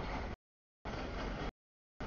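Freight train cars rolling past, a steady rumble and rush of wheels on rail. The sound cuts out abruptly to dead silence twice, the recording's audio dropping out.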